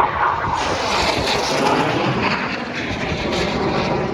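Aircraft flying past at an air show: a loud, dense engine roar whose high hiss grows stronger about half a second in.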